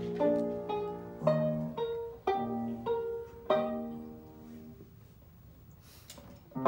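Live banjo and grand piano duo playing a slow, halting introduction in free time, single notes and short phrases ringing out one after another. About five seconds in the notes die away into a quiet pause, broken only by a short soft hiss.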